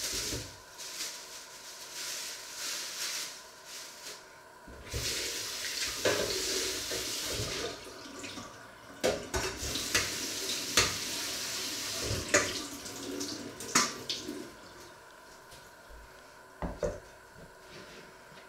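Water running from a kitchen tap into a sink, turned on in spells over about fourteen seconds while fruit is rinsed in a metal colander, with several sharp knocks and clatters of the colander. It goes quieter near the end.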